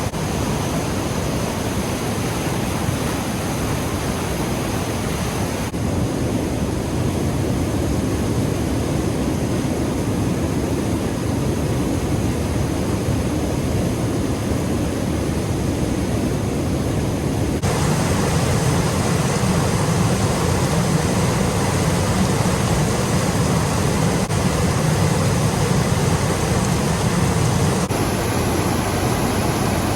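Fast waterfall rushing steadily, a loud, even wash of white-water noise. Its tone changes suddenly three times, about six, eighteen and twenty-eight seconds in.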